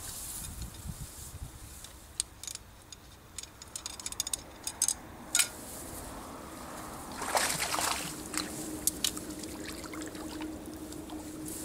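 A mesh fishing keepnet being pulled out of the river: a few light clicks and rustles as it is handled, then, about seven seconds in, water splashing and streaming off the wet mesh as it is lifted clear.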